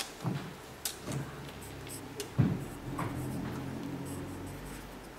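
Light knocks and taps of drawing pencils being set down and picked up on a wooden table, with the loudest knock about two and a half seconds in.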